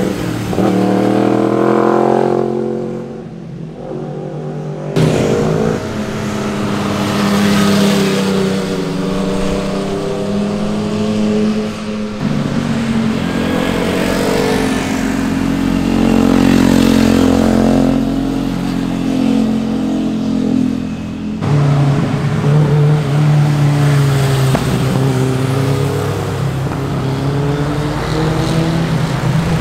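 High-revving sport motorcycle engines, their pitch rising and falling as the riders accelerate and shift, in several segments that cut abruptly from one to the next about 5, 12 and 21 seconds in.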